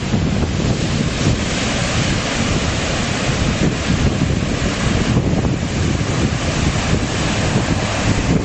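Pacific Ocean surf washing steadily, with wind buffeting the microphone and adding a low rumble.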